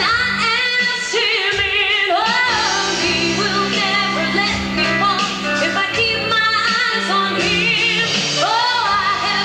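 Music with a woman singing, her voice wavering with vibrato over sustained accompaniment.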